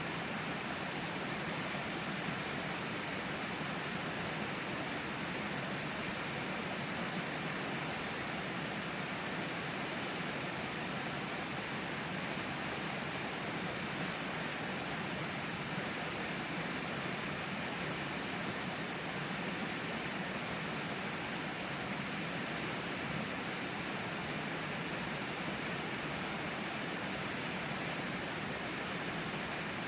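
Steady rush of river water flowing close by, an even hiss with no breaks. A thin, steady high-pitched tone sits on top of it.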